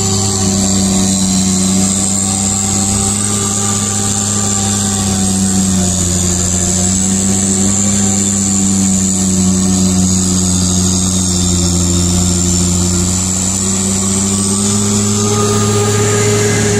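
Snowblower running under load: a loud, steady engine and fan drone with a constant hiss as snow is thrown out of the chute.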